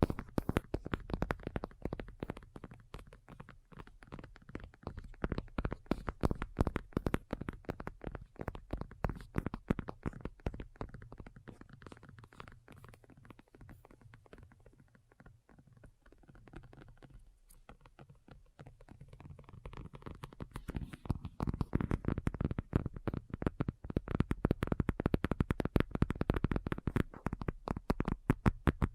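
Fingernails tapping rapidly on a hard surface, many quick clicks a second. The tapping grows softer through the middle and gets louder again about two-thirds of the way through.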